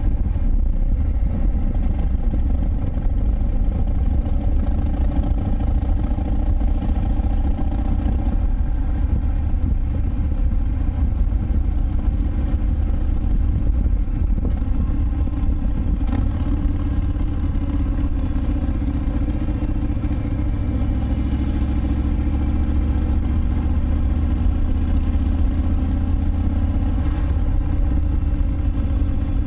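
2019 Harley-Davidson Breakout FXBRS's Milwaukee-Eight 114 V-twin running steadily through a Vance & Hines Big Radius exhaust, with a deep exhaust note as the bike cruises along.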